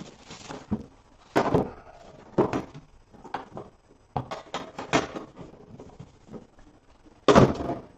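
Handling of a cardboard trading-card box and its plastic wrap: irregular rustles and crinkles with a few knocks and taps, the loudest about a second and a half in, near the middle and near the end.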